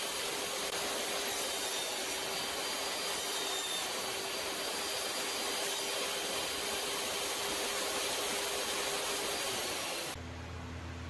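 Table saw running steadily with a faint whine while notches are cut into wooden legs. About ten seconds in it gives way abruptly to a quieter, steady low hum.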